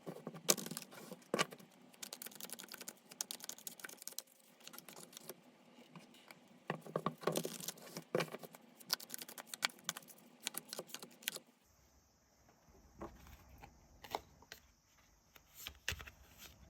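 Tarot cards being handled and shuffled: a dense run of quick clicks and taps, turning to sparser single taps about eleven seconds in.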